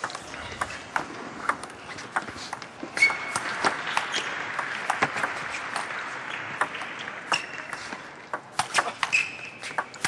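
Table tennis rally: the ball clicking off rackets and table again and again, over the steady hum of the crowd in the hall.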